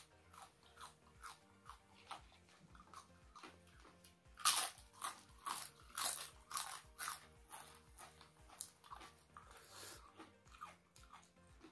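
Close-miked eating: soft chewing at first, then from about four and a half seconds in loud, crisp crunches about twice a second as thin fried crackers are bitten and chewed together with raw red chilies.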